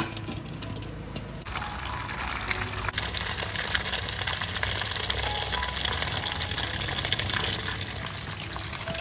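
Water running in a steady gush, which starts abruptly about a second and a half in.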